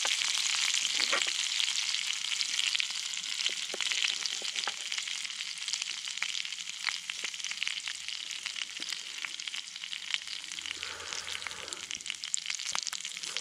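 Onions sizzling in a cast-iron skillet over a twig stove's wood fire: a steady frying hiss that slowly grows quieter, with scattered small clicks and pops.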